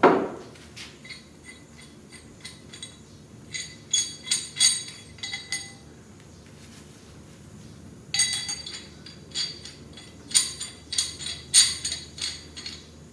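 A thud at the start, then metal lifting hardware (hook, chain and shackles) clinking and jingling in two bursts as lifting straps are rigged around a VW Beetle transaxle for a winch lift.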